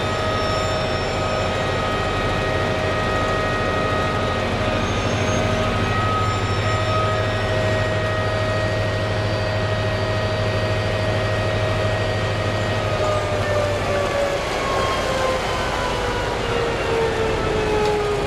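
Large mining dump truck running hard with a steady mechanical whine and a low hum while its tipping body is held raised. About two-thirds of the way through, the whine starts falling slowly in pitch as the body comes back down.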